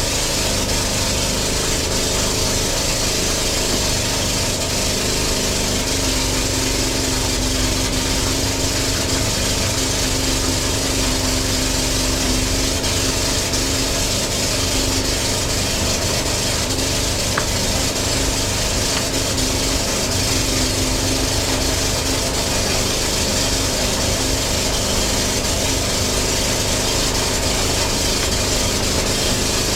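Chaff cutter (forage chopper) running steadily, a continuous machine drone with a steady hum that does not change.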